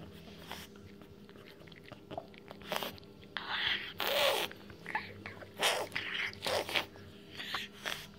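Pug puppy chewing and licking a small treat, in irregular bites over several seconds, loudest about four seconds in.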